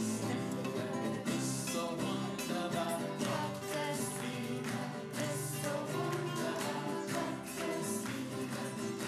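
A small group singing a song together to a strummed nylon-string classical guitar, with hands clapping along in a steady beat.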